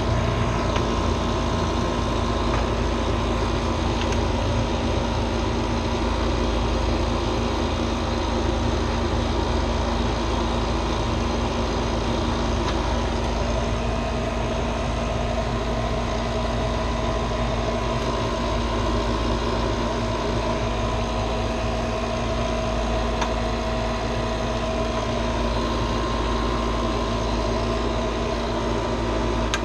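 A motor-driven machine running steadily: a constant hum with a few steady tones, and another tone joining about halfway through.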